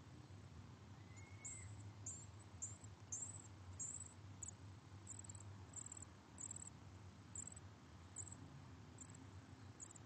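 Dark-eyed junco nestlings begging while being fed: faint, thin, high-pitched cheeps, repeated about twice a second from about a second and a half in.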